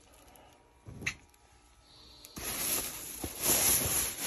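A plastic shopping bag rustling and crinkling as it is handled, starting about halfway through and growing louder. One light tap about a second in.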